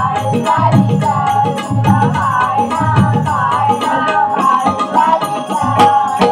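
Marathi bhajan music for a cradle song (palna): a harmonium and voices carry a wavering melody over a steady beat of pakhawaj drum strokes and jingling jhanj cymbals.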